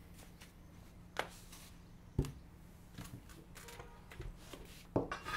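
A few knocks and thuds of a plate being set down and a man sitting down at a table, over a steady low hum. The loudest thud comes about five seconds in.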